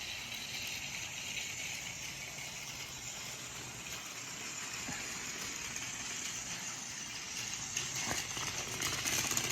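Battery-powered Plarail Thomas toy train running along its plastic track: a steady small-motor whir with the rattle of its wheels on a bumpy track, growing louder near the end.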